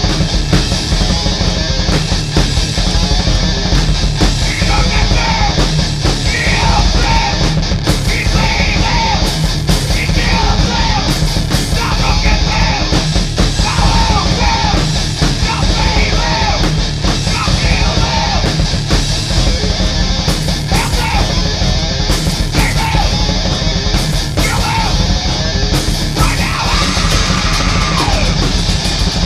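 A loud rock band playing heavy, distorted music, with yelled vocals coming in about four seconds in and recurring in short phrases over the guitars and drums.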